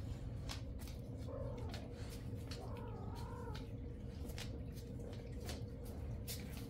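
A domestic cat meowing: a short call about a second and a half in, then a longer call that wavers up and down in pitch about three seconds in.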